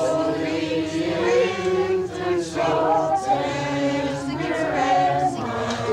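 A group of voices singing a Christmas carol together in slow, long held notes.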